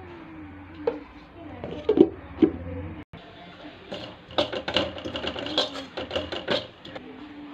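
A metal spoon clinking and scraping against a steel vessel while stirring ground powder, in a quick, uneven run of clicks from about halfway in, lasting a couple of seconds. Faint voices come before it.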